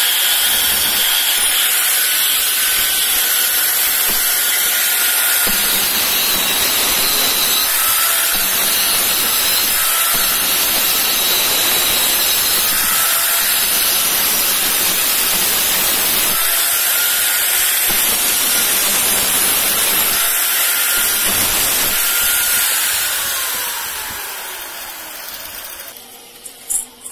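Angle grinder with a thin cut-off disc cutting through a steel square tube: a loud, steady hiss and whine that dips slightly every couple of seconds as the disc bites. Near the end the grinder is switched off and winds down with a falling whine, followed by a couple of light metallic clicks.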